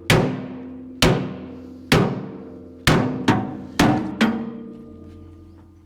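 Hammer blows on the steel plate of a skid steer bucket, seven strikes about a second apart with the last few coming quicker, each leaving the steel ringing as it dies away: the plate being forced into place.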